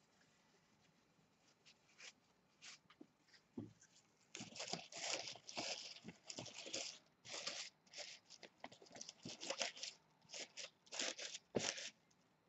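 Dry shredded wood (excelsior) rustling and crackling as handfuls are pushed and packed down into a plastic deli cup. Only a few light clicks for the first few seconds, then irregular crinkling bursts from about four seconds in.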